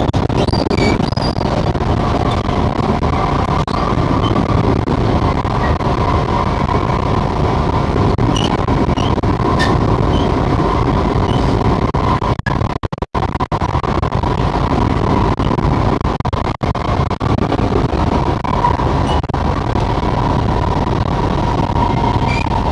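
Singapore MRT train running at speed, heard from inside the carriage: a steady rumble of wheels on rail with a constant motor hum. The sound briefly drops out a little past halfway.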